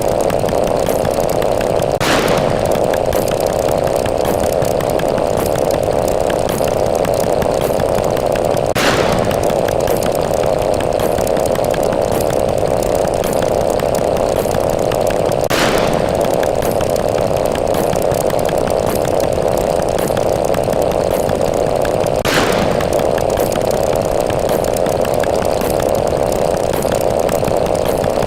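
Counter sound effect: a continuous, loud buzzing drone, with a brief sharp accent about every seven seconds.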